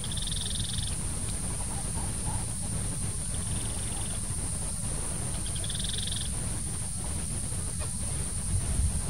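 A small animal's high, rapidly pulsed trill, each under a second long, calls three times, about two and a half seconds apart. Behind it are a steady high-pitched whine and a low rumble.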